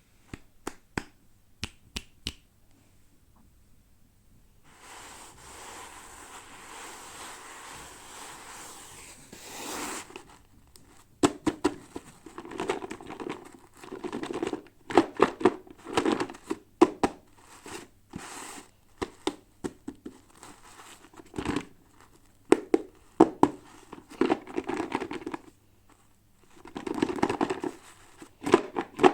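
Toy packaging being opened by hand: plastic and paper crinkling and tearing, with sharp clicks and taps near the start and a steady hiss of rubbing or peeling a few seconds in.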